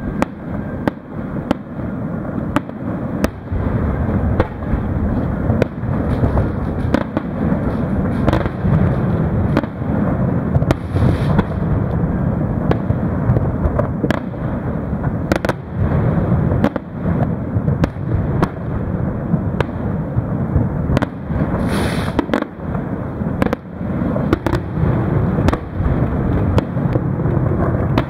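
Aerial fireworks display: shell bursts going off in quick, irregular succession, many sharp bangs over a continuous low rumble of booms.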